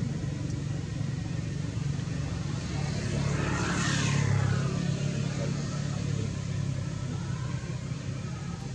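A motor vehicle passing by, its noise swelling to a peak about four seconds in and then fading, over a steady low engine hum.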